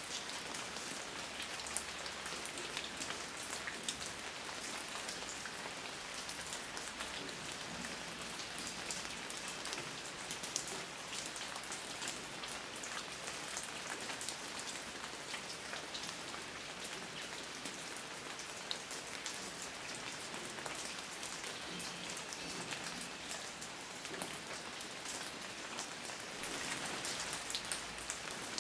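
Steady rain falling on a surface, a dense hiss with many individual drops pattering through it.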